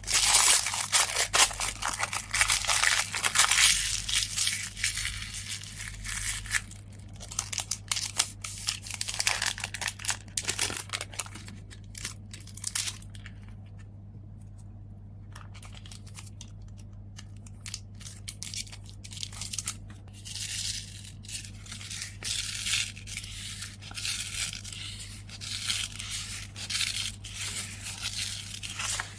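Packing materials being handled: paper or plastic packaging rustling, crinkling and tearing in close, irregular bursts, heaviest in the first several seconds and again in the last third, with scattered small clicks and scrapes between. A steady low hum sits underneath.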